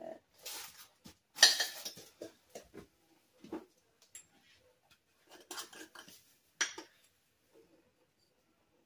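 Scattered rustles and clicks of kitchen handling: a plastic slow-cooker liner being pressed and smoothed into the crock, then a small spice jar picked up and handled with its lid off. The loudest rustle comes about a second and a half in.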